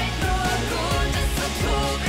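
Upbeat pop music with a steady beat and a sung melody.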